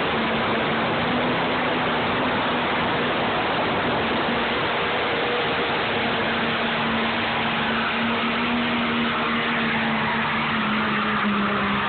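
Dodge 3500 pickup's 5.9-litre diesel running hard under full load as it pulls a weight sled, a steady loud drone with its pitch dipping slightly near the end.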